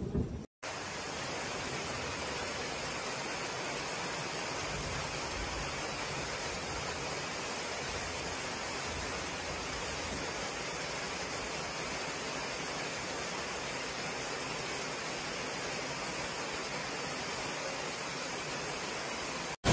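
Floodwater rushing as it gushes through glass station doors, heard as one steady, unbroken roar of water that starts about half a second in.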